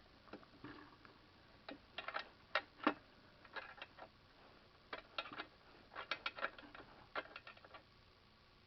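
Small metal clicks and clinks in short irregular clusters as hand tools work fasteners on a Honda G100 engine.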